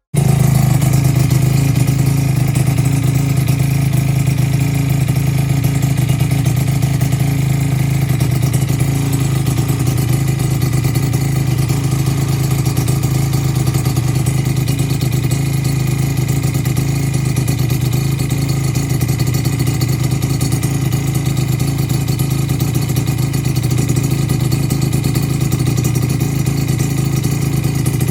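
Freshly rebuilt two-stroke engine, its ports reworked and fitted with an expansion chamber, idling steadily with no change in speed.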